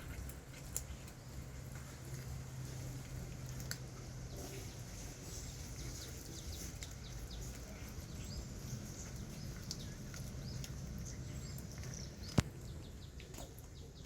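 Quiet outdoor ambience: small birds chirping repeatedly in high short calls over a steady low hum, with a single sharp click about twelve seconds in.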